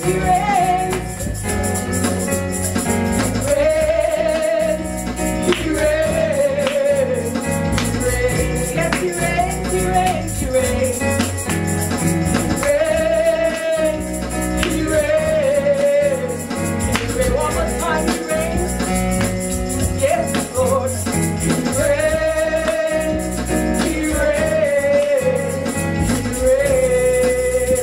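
A woman singing a gospel worship song through a microphone and PA, over an instrumental backing, her melody held in long, bending phrases.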